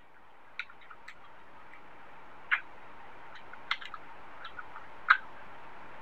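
Close-miked chewing of rice and curry: a few short, wet mouth smacks and clicks at uneven intervals about a second apart, the loudest near the middle and near the end, over a steady faint hiss.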